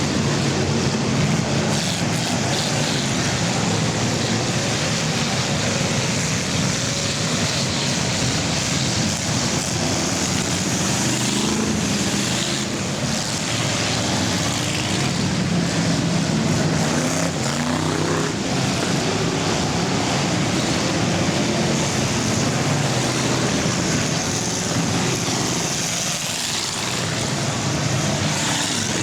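Engines of a pack of full-size cars racing in an enduro. Several engine notes overlap and rise and fall, over a steady dense drone.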